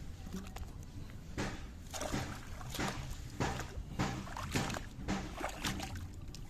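Water splashing and sloshing in a series of short strokes, roughly two a second, starting about a second and a half in, over a low steady rumble.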